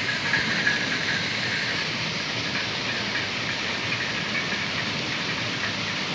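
Maize thresher running steadily: a constant, even hissing rush of machine noise with engine running beneath it.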